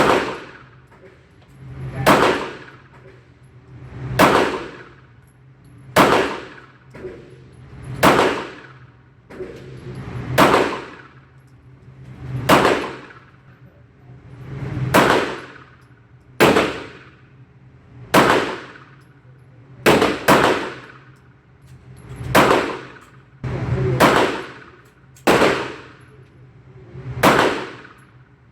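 Shots from a CZ40-B .40 S&W pistol fired one at a time, about one every two seconds with two close together past the middle, each with a ringing tail.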